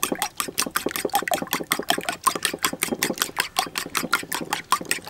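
Metal fork beating raw eggs in a bowl: quick, even strokes that tap against the bowl several times a second.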